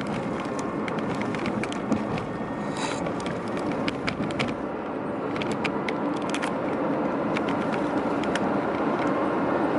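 Steady road and engine noise heard from inside a car cabin while driving on the highway, with scattered light clicks and rattles.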